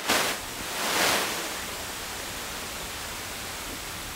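Steady, even hiss, with two brief swells of rustling noise in the first second or so.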